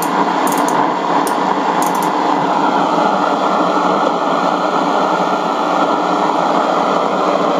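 Steady static hiss from the speaker of a RadioShack 12-795 multiband receiver, tuned off-station at the low end of the AM broadcast band. The hiss turns duller about three seconds in as the tuning knob is turned.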